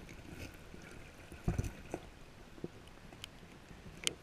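Muffled, low watery sound of a brook heard through a submerged camera's housing, with a few dull knocks, the loudest about a second and a half in, and a couple of sharp clicks near the end.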